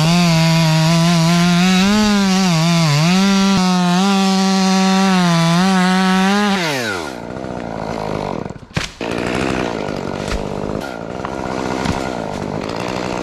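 Chainsaw revved to full speed and held there for about six seconds, its pitch dipping briefly near three seconds in as if loaded in a cut, then winding down. A sharp knock follows, then the saw runs on more quietly.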